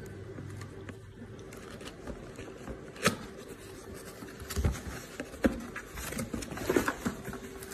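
Cardboard shipping box being handled and opened by hand: scraping and rustling of cardboard, with several sharp clicks and knocks from about three seconds in.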